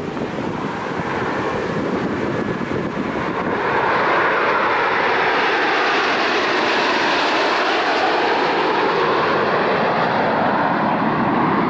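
Jet noise from a formation of Aermacchi MB-339 jets, each with a single Rolls-Royce Viper turbojet, flying past. The noise grows louder about four seconds in and stays loud, with a slowly sweeping whoosh as the jets pass.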